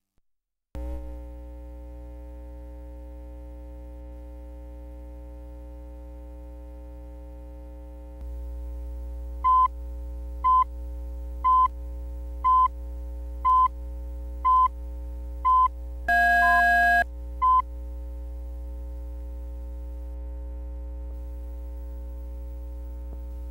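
Steady electrical hum that steps up a little about eight seconds in. Over it come short test-tone beeps about once a second, seven in a row, then a longer tone of two pitches and one last short beep.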